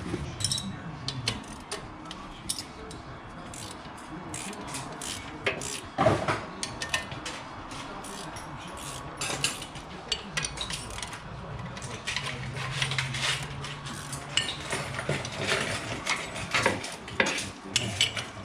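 Hand wrenches clinking and clicking irregularly on metal as the driveshaft's U-joint bolts are loosened under the car, with one louder knock about six seconds in.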